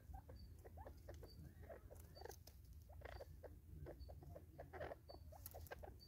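Francolins pecking and scratching for food on a wooden tree stump: soft, irregular taps and scuffles.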